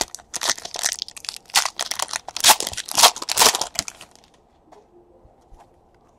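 Clear plastic packaging crinkling and crackling as it is handled, in a run of sharp bursts for about four seconds. After that only faint handling ticks remain.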